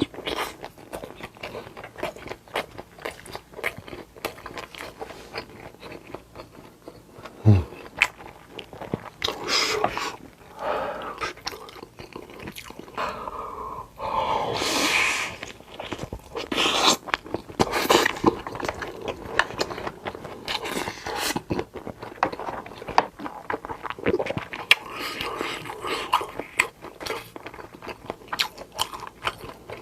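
Close-miked eating: a person biting and chewing mouthfuls of a Korean home-style meal, with many sharp mouth clicks and a few longer noisy stretches, the longest about halfway through. A short low thump comes about seven seconds in.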